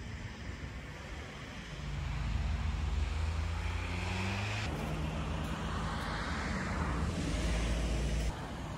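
A motor vehicle's engine rumbling past, swelling about two seconds in with its pitch falling. The sound changes abruptly about halfway and drops off just before the end.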